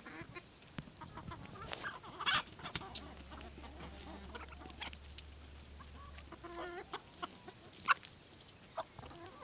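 Flock of free-range hens clucking as they peck at feed on the ground, with scattered short calls throughout and a sharp louder sound near eight seconds in.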